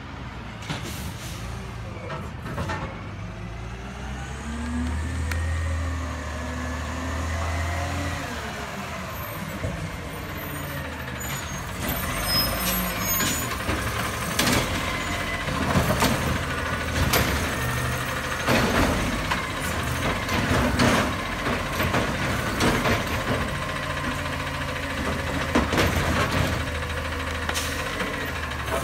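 Split-body automated side-loader garbage truck's diesel engine driving up, its pitch rising and falling, then pulling up beside the carts with air brake hisses and a series of sharp metallic clanks and knocks.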